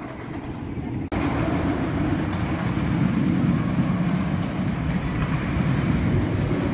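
Roller coaster train running along Storm Chaser's RMC I-Box steel track, heard from the ground as a steady low rumble that cuts in abruptly about a second in.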